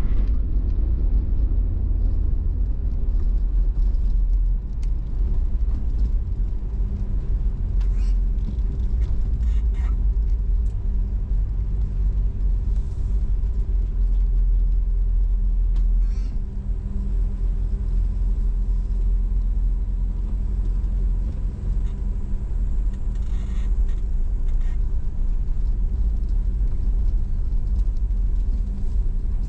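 Car driving at low speed: steady low engine and road rumble with a faint hum. A few brief light clicks or knocks.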